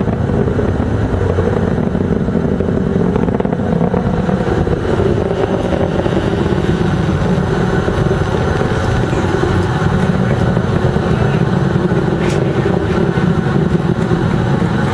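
Space shuttle launch rumble: the rocket engines' loud, steady, deep roar, unbroken throughout.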